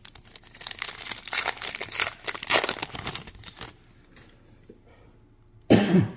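Foil wrapper of a Topps Chrome trading-card pack crinkling and tearing as it is opened by hand, for about three seconds. A short loud burst near the end.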